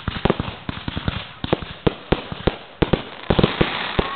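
Fireworks finale: a dense, irregular barrage of shell bursts, several bangs a second, over a continuous crackling hiss.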